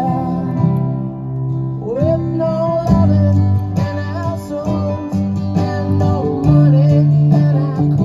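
Guitar music playing loudly through a Kenwood KA-500 stereo integrated amplifier and its speakers, with a melody line sliding over a steady accompaniment.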